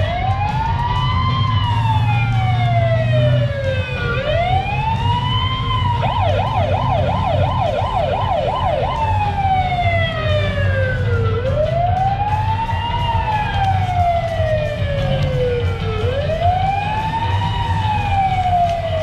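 Police-car siren sounding a wail, four slow cycles of a quick rise and a long fall, with a few seconds of fast yelp about six seconds in. A low engine rumble runs underneath.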